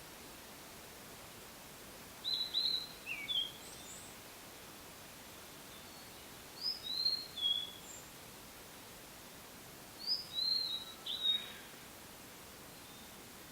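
Blue-and-white flycatcher singing: three short phrases of clear, high whistled notes, each with slurred rising and falling notes, coming about two seconds in, in the middle, and about ten seconds in, over a steady faint background hiss.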